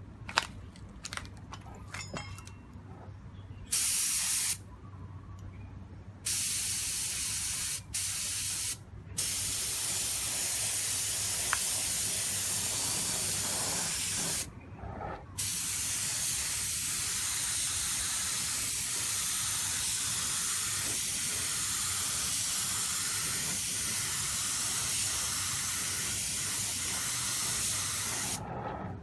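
Gravity-feed air spray gun hissing as it sprays paint: a few short bursts first, then two long steady passes of about five and thirteen seconds. A few light clicks come before the first burst.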